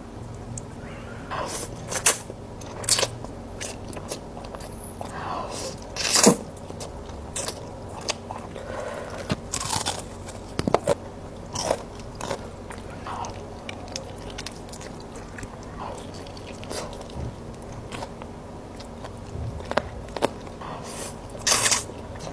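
Close-miked mukbang eating: irregular crisp bites and chewing on fried chicken and spicy instant noodles, with a sharp crunch every second or two.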